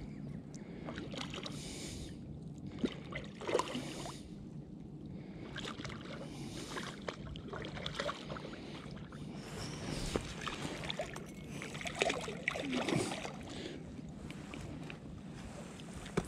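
A hooked trout splashing and thrashing at the surface as it is played in to the bank on a fly line, with water sloshing irregularly and a few sharper splashes.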